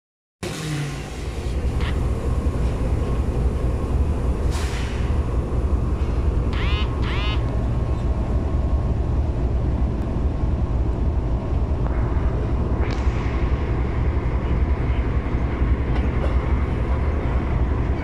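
GEU diesel-electric locomotive engine running with a steady low rumble. A short hiss comes about four and a half seconds in, and two quick squawks come around seven seconds.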